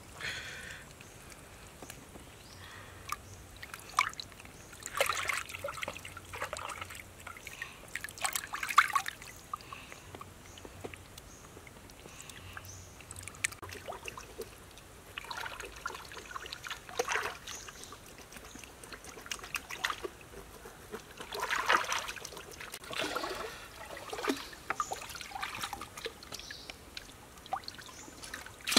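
Shallow stream water sloshing and trickling as hands wash and clean gutted snakes in it, in short, irregular splashy bursts every few seconds.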